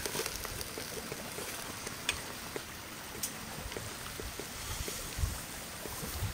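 Water at a rolling boil in a kettle over a small wood-burning firebox stove: a steady bubbling hiss, with a couple of sharp clicks.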